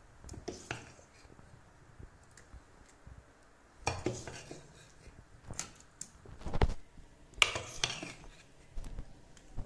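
A metal ladle clinking and knocking against the batter container and steel dhokla plates as batter is ladled out, in several short irregular clusters, loudest past the middle.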